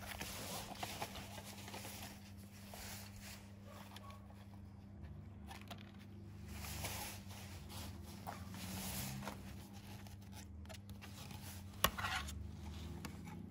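Handling noise from a portable CD player and a CD-R disc: scraping and rubbing of plastic in the hands, with one sharp click near the end.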